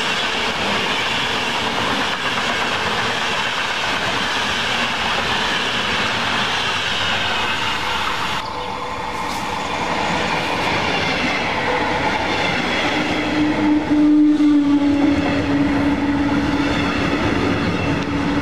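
Passenger coaches behind a ČD class 371 electric locomotive rolling past at speed, wheels running over the rails. About eight seconds in, the sound cuts to a red double-deck S-Bahn push-pull train running past control car first, with a steady tone rising out of the rolling noise over its last few seconds.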